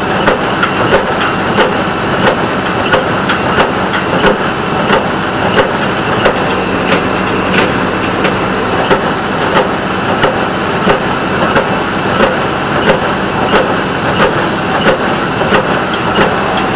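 Small square hay baler working, its plunger packing hay with an even knock about one and a half times a second over a steadily running tractor engine.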